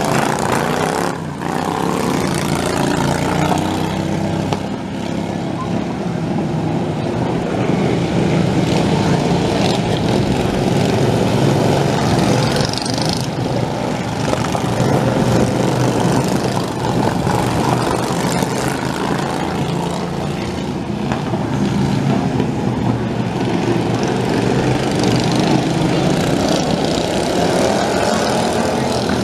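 Several racing lawn tractors' small engines running hard together as they race.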